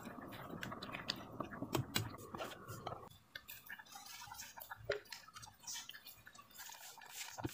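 Pot of water boiling with bok choy in it, bubbling and crackling with many small pops, while a metal ladle stirs the greens. It turns quieter about three seconds in, leaving scattered ticks and pops.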